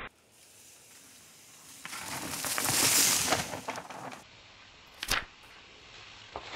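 Mountain bike rolling past on a dirt trail: tyre crunch and crackle swell to a peak about three seconds in, then fade. A single sharp click comes just after five seconds.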